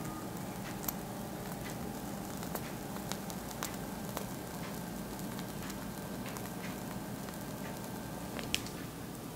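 Piping bag being squeezed as cream is piped onto pastry: faint crackling and scattered small clicks over a steady low hum, with a sharper click near the end.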